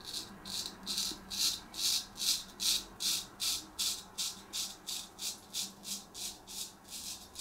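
Straight razor, a freshly re-honed Filarmonica-type Cruff 14 blade, scraping through stubble in short, quick, even strokes, about three a second.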